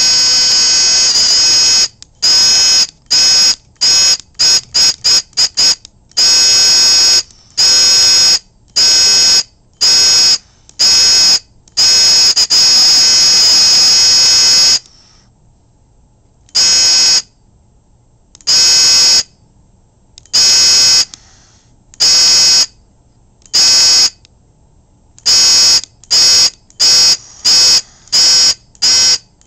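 High-pitched electric alarm buzzer in a small wooden alarm box, switched on and off in fire-alarm code patterns: a held tone, then single beeps, a quick run of short beeps, a long continuous tone of about three seconds, widely spaced beeps, and a faster steady pulsing near the end.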